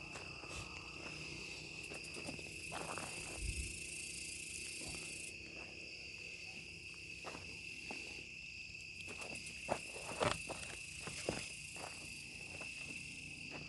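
Crickets chirping steadily in a night-time insect chorus, with a few faint clicks and rustles.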